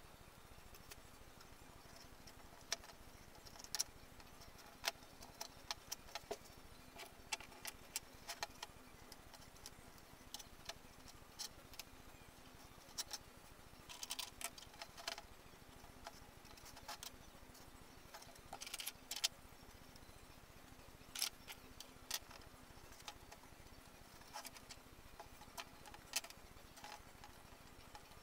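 Irregular light clicks and taps of thin laser-cut wooden model-kit parts being handled and fitted on a cutting mat, with plastic spring clamps clicking on near the end. Under them runs a faint steady hum.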